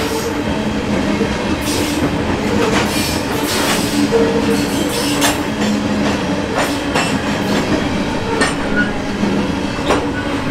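Freight covered hopper cars of a grain train rolling past: a steady rumble of steel wheels on rail, with irregular clicks as wheels cross rail joints and a steady low tone running under it.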